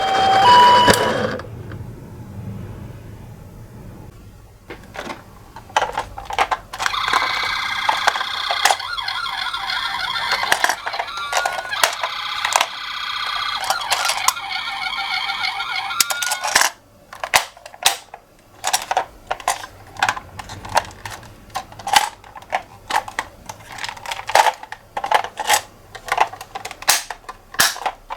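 Toy ambulance minicar's electronic two-tone 'pee-paw' ambulance siren, which cuts off about a second in. It is followed by many sharp clicks and knocks, with a raspy electronic tone for several seconds in the middle.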